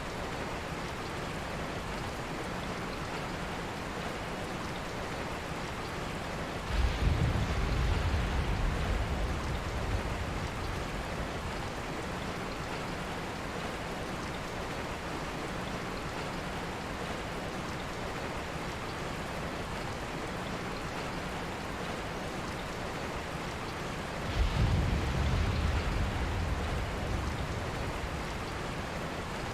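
Steady rain, with two low rumbles of thunder, one about seven seconds in and one near the end, each starting suddenly and fading over a few seconds.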